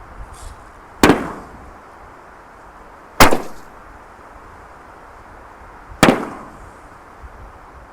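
6-inch canister firework shells going off: three sharp bangs, each with a short echoing tail, about two to three seconds apart.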